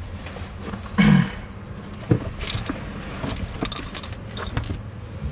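Tools and small metal parts being handled and set down: a thump about a second in, another knock about two seconds in, then a run of light metallic clinks.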